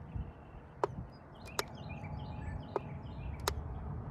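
Four sharp clicks about a second apart from the set button on a JFEGWO jump starter and air compressor's digital pressure display, pressed over and over to step the target tyre pressure. Low wind rumble underneath.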